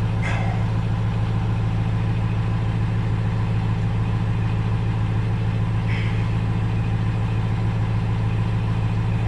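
A steady low machine hum, like an idling engine, running evenly throughout, with two faint brief handling noises about a quarter second and about six seconds in.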